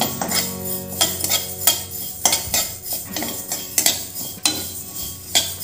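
Flat metal spatula scraping and clinking against a metal kadhai while dry-roasting chilli seeds are stirred, with irregular strokes about two or three a second.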